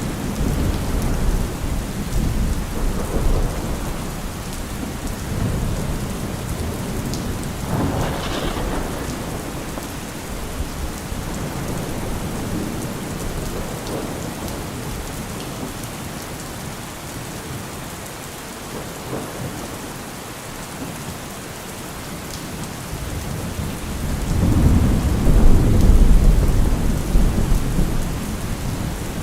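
Heavy rain falling in a steady dense hiss, with a deep low rumble underneath that rises and falls and swells loudest near the end.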